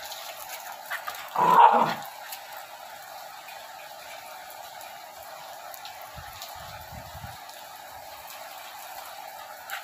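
A German Spitz dog gives one short bark about a second and a half in, over a steady hiss of falling rain.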